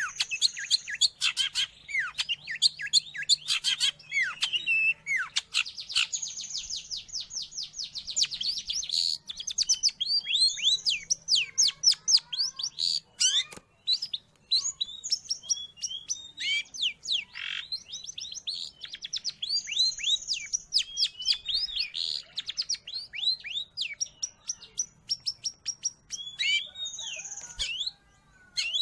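Long-tailed shrike (cendet) singing: a fast, varied chatter of quick falling whistled notes and rapid trills, mixed with short harsh scratchy notes, with a few brief pauses.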